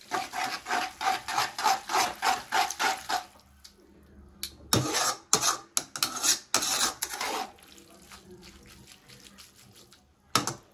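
Metal tongs tossing wet spaghetti in a metal kadai, scraping and clicking against the pan in quick strokes, several a second. It comes in two bouts of about three seconds each, separated by a short pause.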